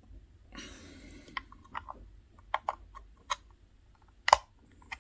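Small clicks and scrapes of the metal top cap being worked down over the Yacht Vape Claymore RDA's accessory barrel, a tight fit. A short scrape comes about half a second in, then a scattering of light clicks, the loudest just past four seconds.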